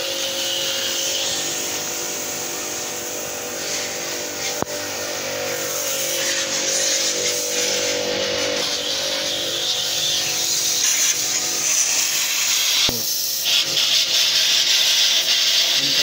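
Portable electric jet-wash pump for AC servicing running with a steady motor hum, its water jet hissing as it sprays the air conditioner's coil.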